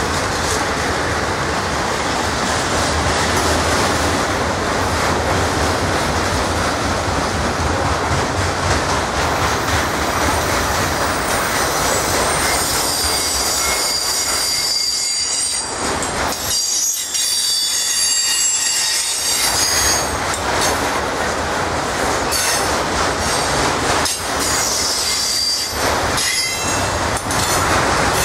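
Autorack freight cars of a passing train rolling by steadily, with high-pitched wheel squeal from about halfway through and again near the end.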